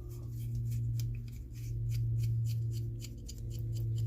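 Light metallic clicking, about six to eight quick ticks a second, as the knurled adjusting screw of a Crescent adjustable wrench is worked and its jaw runs along freshly oiled rails. Under it runs a steady low hum that swells and fades every couple of seconds.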